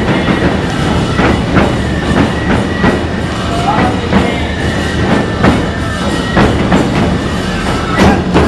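Nebuta festival hayashi music: large taiko drums beaten in a steady rhythm, with metallic hand cymbals clashing and a high piping melody over them.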